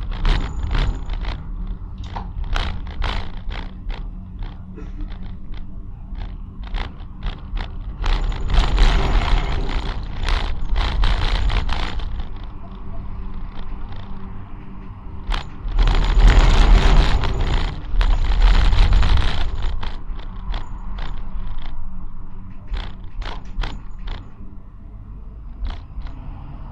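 Prague tram running along the track: a steady rumble with many sharp clicks and knocks. It swells into two louder stretches of rolling noise, about 8 s and again about 16 s in.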